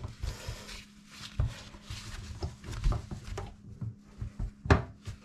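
A run of light clicks and knocks from tools and parts being handled during a mixer tap repair, with one sharper knock near the end and a brief hiss about a second in.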